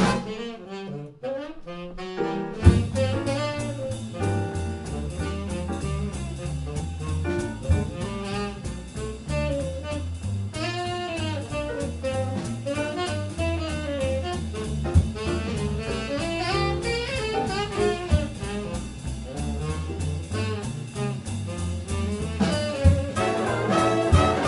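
Swing big band playing live. A loud ensemble passage breaks off, a saxophone solo carries on alone for about two seconds, then bass and drums come in under it. The horns return louder near the end.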